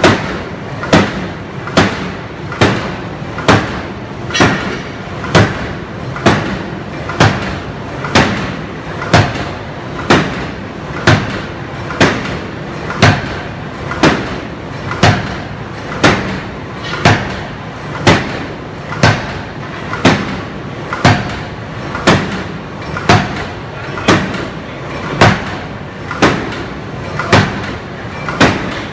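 Hydraulic open-die forging hammer striking red-hot steel in a steady run of heavy blows, about one a second, each a sharp metallic bang with a short ring after it.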